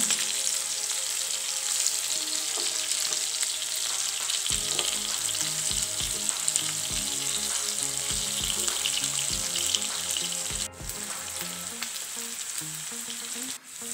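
Marinated beef pieces sizzling steadily as they shallow-fry in hot oil in a non-stick pan, stirred and turned over with a slotted spatula. The sizzle cuts out briefly twice in the last few seconds.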